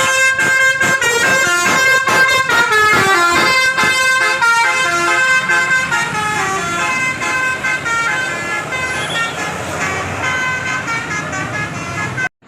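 A bus's Basuri telolet horn playing a fast melody of stepping notes, several tones sounding together, loud and continuous. It cuts off abruptly near the end.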